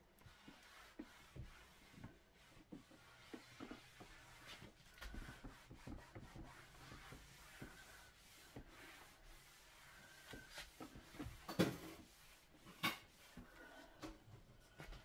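A cloth rubbing and wiping across a wood-grain coffee table top, faint, with scattered small knocks. Near the end come two sharper knocks about a second apart.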